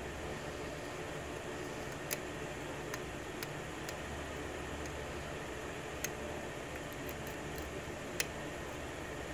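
Small, sharp clicks of a steel hook pick working the pins of a brass 6-pin key-in-knob lock cylinder under a tension wrench during single-pin picking, about five ticks spread irregularly over a steady background hiss.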